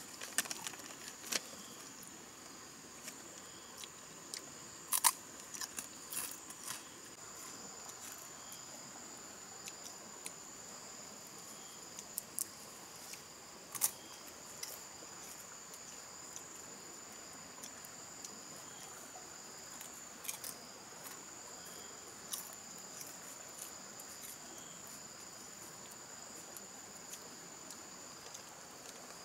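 Insects trilling steadily in a high, unbroken tone, with a few scattered short clicks and rustles.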